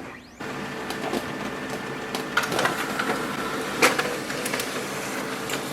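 Xerox B230 laser printer printing a test page: its motor running as the sheet feeds through, with a series of sharp clicks and rattles from the paper path. The sound starts about half a second in.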